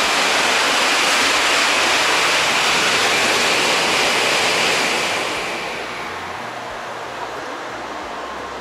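A shinkansen bullet train rushing past alongside, heard from inside another train: a loud, even rushing hiss that swells in, holds, and fades away about five seconds in, leaving the lower steady hum of the carriage.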